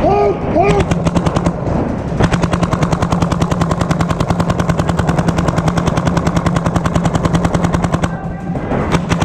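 Electronic paintball marker firing in long, rapid streams of sharp pops, many shots a second, breaking off briefly about eight seconds in and starting again near the end.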